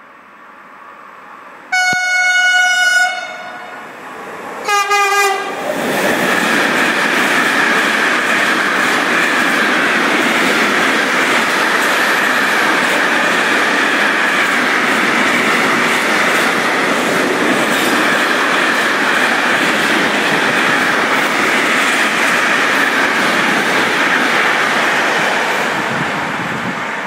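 Freight train's Class 483 electric locomotive sounds its two-tone horn as it approaches at speed: a higher blast about two seconds in, then a lower one that slides down in pitch as the locomotive passes. Then the long line of freight wagons runs steadily past on the rails, easing off near the end.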